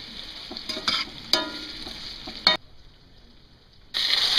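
Diced potatoes frying in a cast iron skillet, a steady sizzle, with a spatula scraping against the pan three times as they are stirred. The sizzle drops away suddenly for over a second past halfway, then comes back louder.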